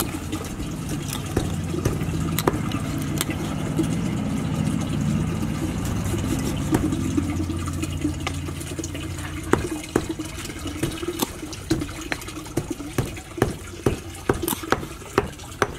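A steady low rushing noise for the first half. Then, from about halfway, a cleaver chops skinned frogs on a wooden chopping board, a run of sharp knocks about two a second.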